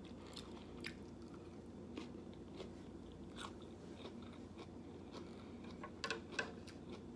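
Close-up chewing and biting of food, with soft scattered mouth clicks and smacks.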